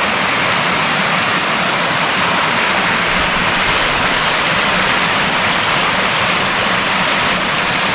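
Rushing water from a waterfall or rocky stream: a steady, loud hiss.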